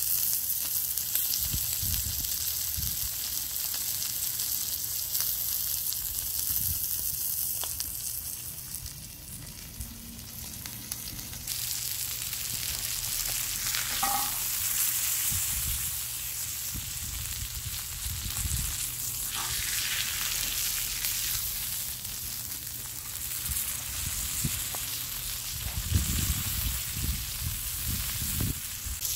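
Ribeye steak sizzling on a very hot ridged cast-iron griddle: a steady frying hiss. Metal tongs scrape the griddle briefly a couple of times as the steak is lifted and turned.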